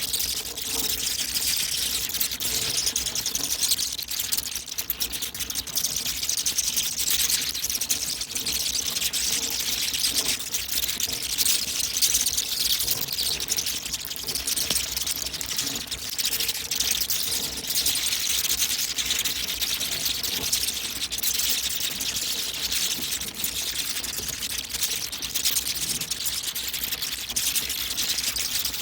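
Hundreds of bats flying out of their roost, a steady, dense chatter of high squeaks and tiny clicks.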